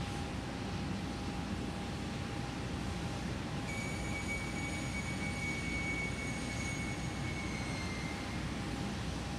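Steady rushing hiss of the live launch-pad audio during propellant loading, with a faint steady hum. About four seconds in, a high whine starts, then dips slightly in pitch and stops near eight seconds.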